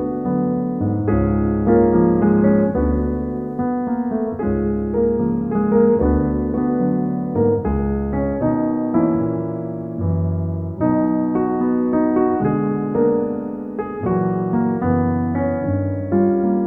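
Background piano music: soft chords over low bass notes that change about once a second.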